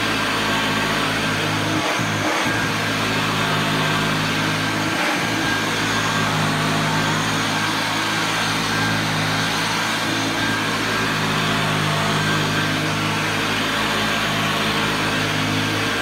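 Hoover Junior U1012 upright vacuum cleaner running: a steady motor hum with a rushing whir of air that holds level throughout.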